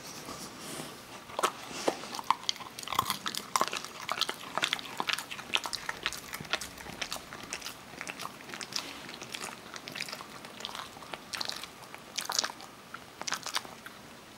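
Kerry beagle chewing almonds, a run of sharp, irregular crunches and cracks. They come thickest in the first half and in a couple of short clusters near the end.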